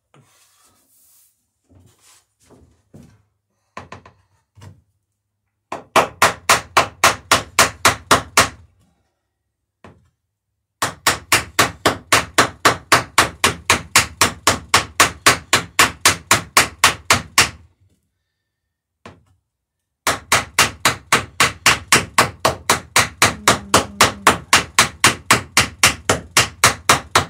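A hammer striking quickly and evenly, about five blows a second, in three runs lasting a few seconds each, after a few faint knocks. It is fastening the dory's lapped planks with nails and rivets.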